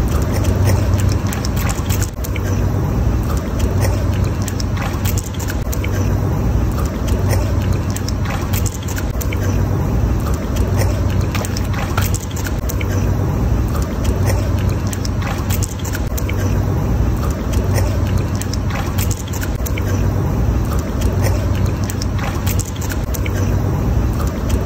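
A dog paddling and splashing in a swimming pool: water slapping and splashing in quick irregular bursts, over a loud low rumble.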